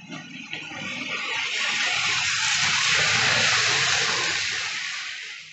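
A Hornby OO gauge model train running past close by: a rushing rumble of wheels on track that swells for about three seconds and then dies away.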